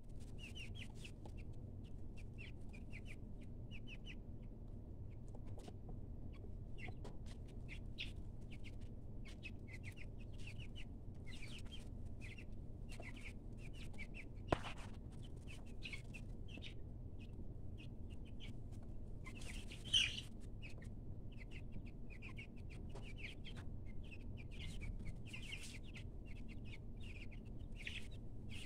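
A brood of two-week-old chicks peeping in a brooder: many short high peeps, overlapping and continuous, over a steady low background noise. A single sharp click comes about halfway through, and one louder call about two-thirds of the way through.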